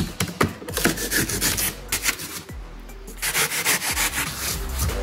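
Hand saw cutting through cured expanding spray foam, rasping back-and-forth strokes that come in two bursts of about a second each, as the swollen excess foam is trimmed down.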